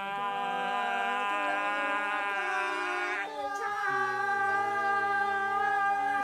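Two voices belting a long held note together in a cabaret song finale, moving to a new held note about three seconds in.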